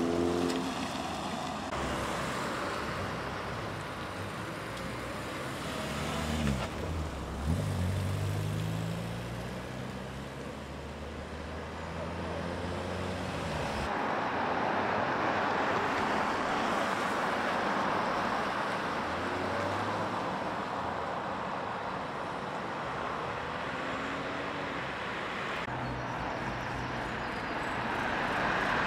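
Cars and 4x4s driving past one after another on a wet road: engine notes and tyre hiss. About a quarter of the way in, one engine's note climbs as the vehicle accelerates away, followed by a steady hiss of tyres on wet tarmac.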